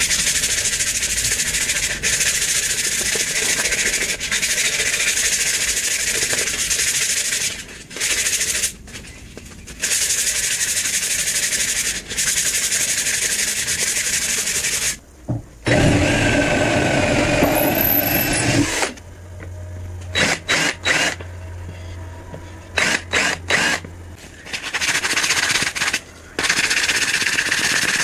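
Sandpaper rasping by hand along a wooden hatchet handle in quick strokes: a loud, scratchy hiss in long runs with short pauses. Around the middle it gives way for a few seconds to a fuller, louder noise, then to a low hum with scattered clicks, before the sanding resumes near the end.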